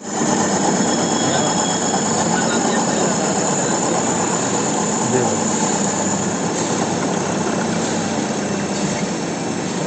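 Metal lathe running steadily: a continuous hum under a dense hiss.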